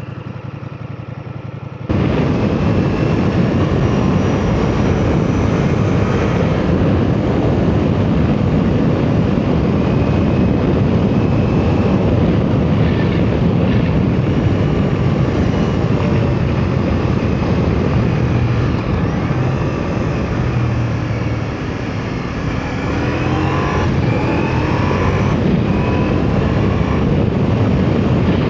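Ducati motorcycle being ridden, its engine running under a loud, even rush of wind and road noise that starts suddenly about two seconds in.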